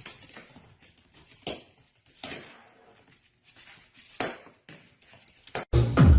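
A few light taps and knocks with soft patter in between, then loud electronic dance music cuts in near the end.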